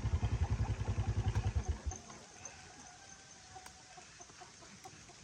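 Motorcycle engine idling with an even low beat, then switched off about two seconds in; chickens clucking faintly after it stops.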